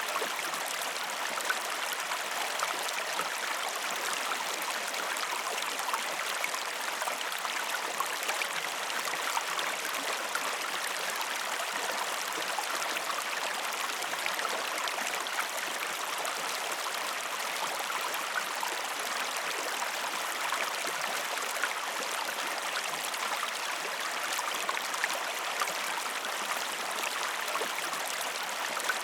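A stream flowing steadily: an even, unbroken rush of running water.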